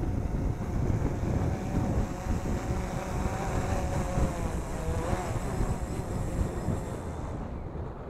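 Up Air One Plus 4K quadcopter's motors and propellers whining at a hover while it is caught by hand, the pitch wavering and the whine cutting off suddenly about seven seconds in as the motors shut down. Heavy wind buffets the microphone throughout.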